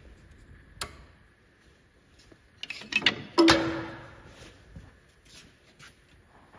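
A few light clicks and knocks, then a sharp metallic clank about three and a half seconds in that rings briefly with a single tone as it fades.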